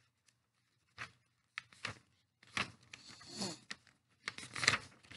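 A sheet of paper being handled and folded: several short rustles and crinkles of the paper, the loudest near the end.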